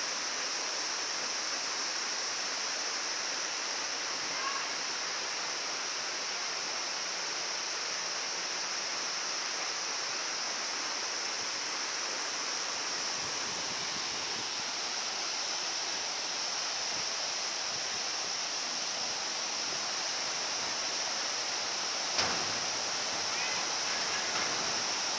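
Waterfall rushing steadily, with one sharp knock about 22 seconds in.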